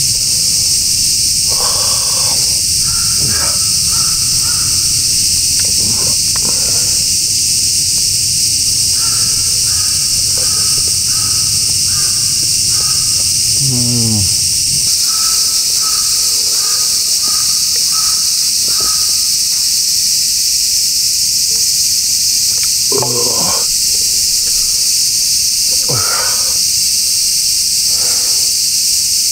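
Loud, steady drone of cicadas in midsummer woods. Over it, birds call: a few short, harsh calls, and two runs of quick repeated notes in the middle.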